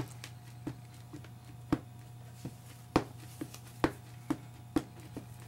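Irregular sharp taps, roughly one or two a second, of a VersaMark ink pad being dabbed onto an unmounted rubber stamp to ink it, over a steady low hum.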